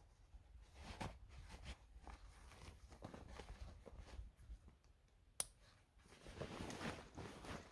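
Faint rustling and crunching of camping gear being handled and packed, with one sharp click about five seconds in, over a low rumble.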